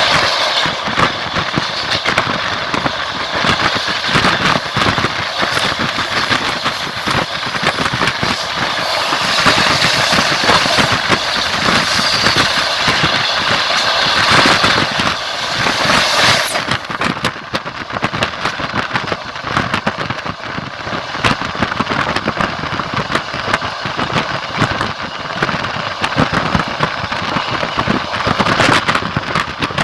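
Running noise of a moving passenger train: steel wheels clacking over rail joints amid a steady rushing hiss. About halfway through, the hiss turns duller while the clatter goes on.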